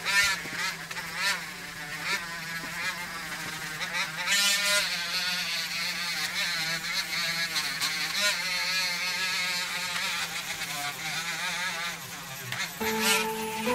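Dremel rotary tool running with a felt buffing wheel, polishing a carved wooden hairpin; its whine wavers up and down in pitch as the wheel is pressed against the wood, over a steady motor hum.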